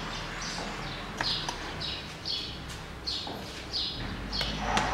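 A bird chirping again and again in the background, short falling notes about twice a second, with a few sharp plastic clicks from an awl prying the cable retainer on a car door lock mechanism, the loudest about a second in and near the end.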